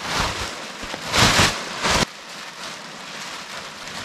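Nylon fabric of an inflatable air lounger rustling and swishing as it is swung through the air to scoop it full. The loudest surge comes about a second in and cuts off suddenly at about two seconds, leaving quieter crinkling of the fabric as the bag is gathered.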